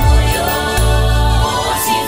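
Gospel song: women's voices singing together in harmony over an instrumental backing with a heavy bass.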